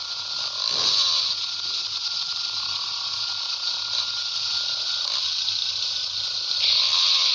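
A steady hiss that steps up louder near the end.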